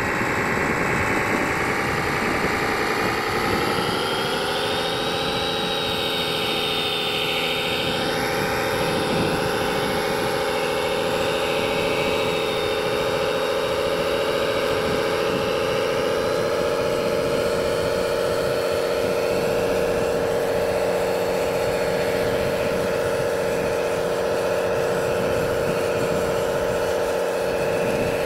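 Radio-controlled model construction machines running: a steady motor whine whose pitch rises a few seconds in, then holds.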